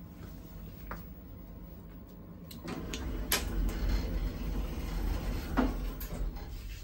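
Lift car running with a low mechanical rumble that swells about a third of the way in, broken by a few sharp clicks.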